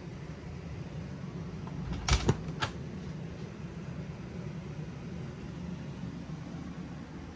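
A motorhome bathroom door's latch clicks and the door is pulled open: two sharp clicks close together about two seconds in, a third just after. A steady low hum runs underneath.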